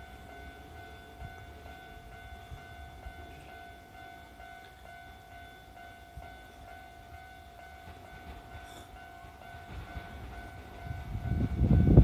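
Level-crossing warning alarm ringing steadily. From about ten and a half seconds in, the rumble of an approaching Kintetsu 30000 series limited express train rises sharply and becomes the loudest sound.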